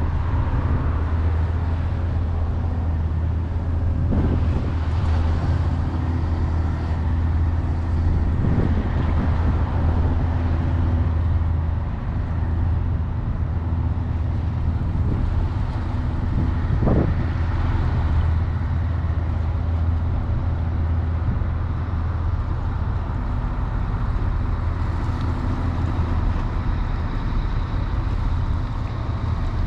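Steady low-pitched hum of a running engine, with no change in speed.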